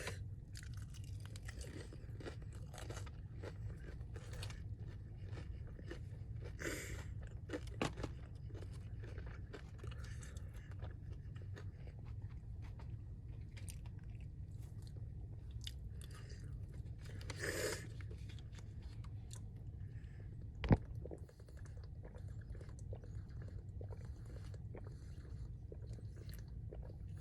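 Close-miked chewing and crunching of crispy Popeyes fried chicken skin, a steady run of wet bites and crackles with a few louder crunches. A single sharp knock comes about three-quarters of the way through.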